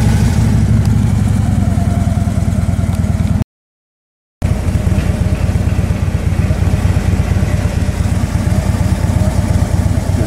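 A vehicle's engine running steadily on the move, a dense low rumble with a fast even pulse. The sound drops out completely for about a second, some three and a half seconds in, then carries on.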